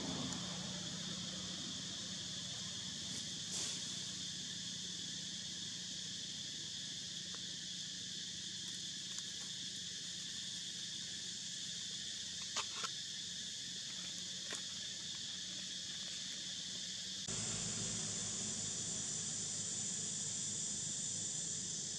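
Steady, even high buzz of an insect chorus in forest ambience, with a few brief faint clicks; the background changes abruptly about 17 seconds in.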